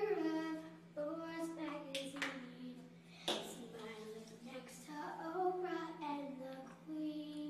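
A young girl singing a wordless tune in drawn-out, sliding notes, broken by a few sharp knocks from her hands handling things. A steady low electrical hum runs underneath.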